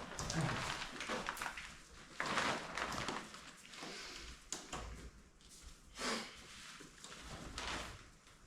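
Rustling and knocking of a dome tent's fabric and poles being handled as it is pitched, in irregular bursts with a few sharper knocks.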